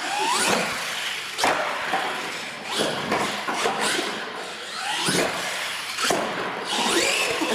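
Radio-controlled monster trucks driving over wooden ramps and a concrete floor: a series of sharp knocks and thuds as wheels and chassis hit the ramps and floor, with the trucks' electric motors rising in pitch as they speed up.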